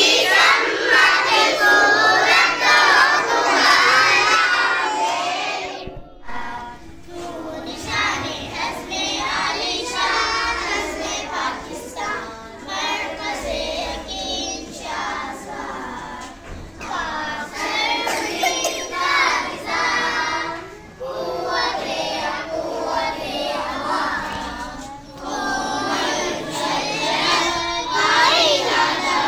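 Many young schoolchildren's voices singing together in unison, loud, with a short break about six seconds in.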